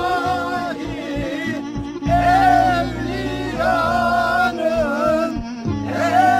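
Music: a solo voice singing an ornamented, wavering melody in phrases over steady low sustained notes, with a short break in the singing about two seconds in and again near the end.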